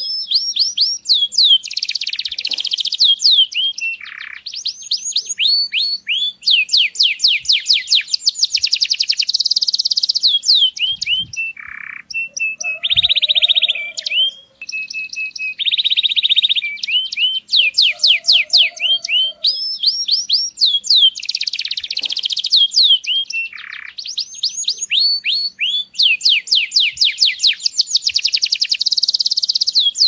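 Male domestic canary singing a long, continuous breeding song: fast runs of repeated downward-sweeping whistled notes, broken by a couple of dense buzzy rolls about midway.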